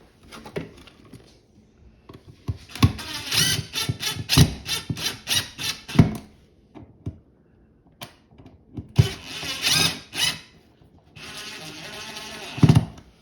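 Power drill driving the mounting screws of a newly installed electrical receptacle into its box, in several short runs. The last run ends in a sharp knock.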